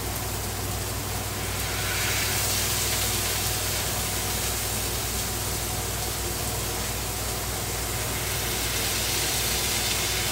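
Ground-beef patties and sliced onions sizzling on a Blackstone flat-top griddle while the patties are pressed flat: a steady hiss that swells about two seconds in, over a low steady hum.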